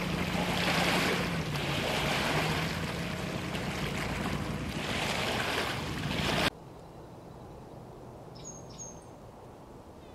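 Loud rushing noise over a steady engine hum that drops slightly in pitch about a second and a half in, cutting off suddenly a little after six seconds. A quiet outdoor background follows, with two short high chirps.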